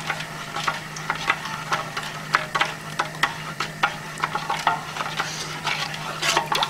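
Sugar syrup being stirred in a pot on the stove: a utensil scraping and clicking irregularly against the pan bottom, several strokes a second, with undissolved sugar grains still grating underneath.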